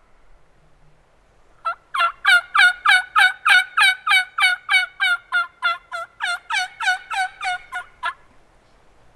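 Turkey call run as a long series of about twenty hen yelps, evenly spaced at about three a second, loud and close. It starts after a second and a half of quiet and stops about eight seconds in. Calling of this kind is used to strike up a gobbler.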